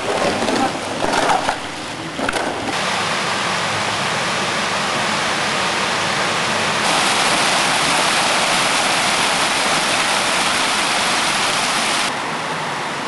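Water released to wash the village streets, rushing along the paved lane and splashing down stone steps as a steady, even rush. It grows louder about seven seconds in and drops back shortly before the end. In the first couple of seconds a broom scrapes the wet paving.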